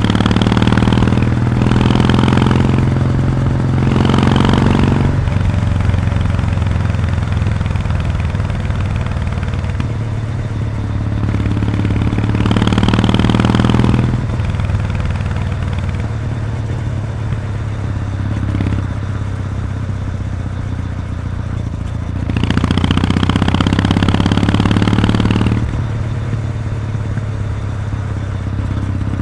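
Kawasaki W800's air-cooled parallel-twin engine running through its stock muffler with the baffle removed, while the bike is ridden. The exhaust note swells under throttle several times: three short pushes in the first five seconds, then two longer ones, around the middle and past the three-quarter mark.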